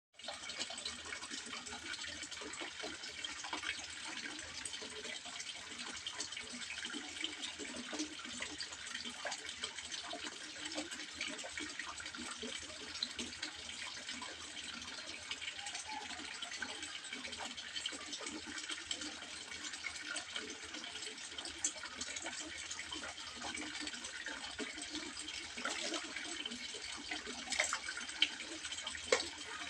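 Water trickling and splashing into a fish pond: a steady, continuous gurgle with a few sharper splashes near the end.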